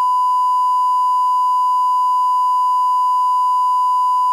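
A steady, pure reference test tone at the head of a TV broadcast recording, with faint ticks about once a second. It cuts off abruptly at the end.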